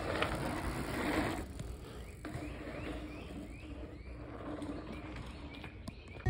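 Gravel bike's tyres rolling through a packed-dirt berm, a rushing crunch that fades after about a second and a half. A run of short rising chirps follows, about two a second.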